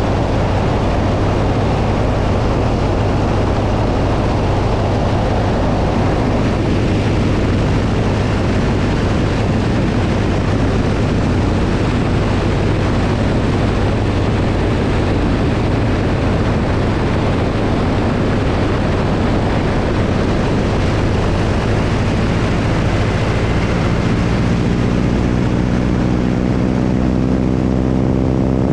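Propeller airplane's engine running steadily in flight, its drone under heavy wind rush on the microphone. Near the end the rush eases and the engine's droning note stands out more clearly.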